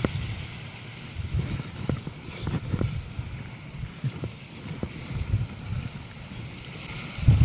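Strong gusty wind buffeting the microphone in uneven low rumbles over a steady hiss, with a few faint ticks; a stronger gust hits near the end.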